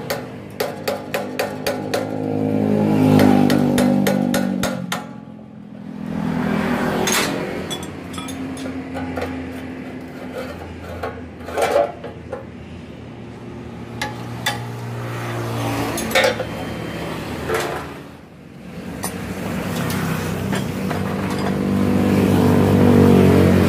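Hand tools clinking and knocking on the metal parts of a cut-off saw as its blade and guard are taken off, with a quick run of clicks near the start. Passing motor vehicles hum in the background, swelling and fading three times.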